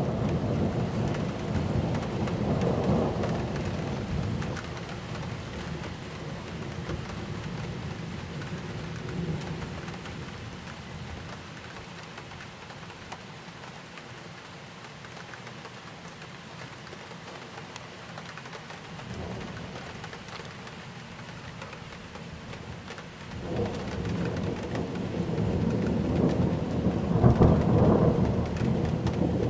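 Thunderstorm: steady rain hiss with rolling thunder. A rumble fades away over the first few seconds, a fainter one comes up about twenty seconds in, and a long, louder rumble builds from about twenty-three seconds in and peaks near the end.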